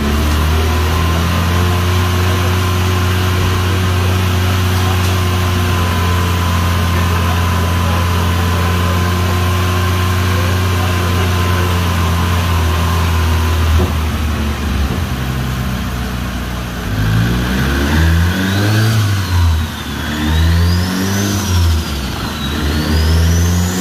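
Turbocharged Mitsubishi Lancer 4G15 MIVEC engine running at steady revs for about fourteen seconds, then revved up and down several times. A high turbo whistle rises and falls with the revs.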